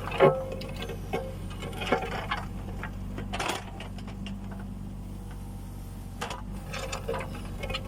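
Kubota U20 mini excavator's diesel engine running steadily while digging, with irregular clanks, knocks and scrapes from the bucket and linkage. The loudest is a sharp knock just after the start.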